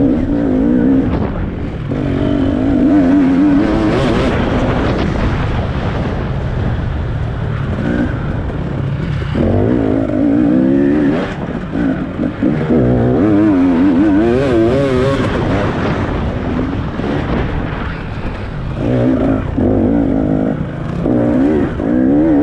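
A racing vehicle's engine revving up and easing off again and again, its pitch wavering quickly, over a steady low rumble.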